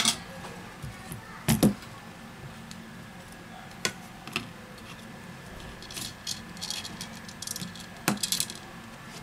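Small clicks, taps and knocks of smartphone parts (the Huawei Mate 9's frame and back cover) being handled and set down on a silicone repair mat, with a run of light rapid clicking near the end, over a faint steady hum.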